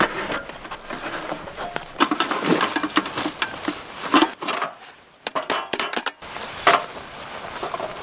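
Small folding metal wood stove being handled, lifted and tipped over to empty its ash: irregular metal clanks, rattles and scrapes, with a few sharper knocks.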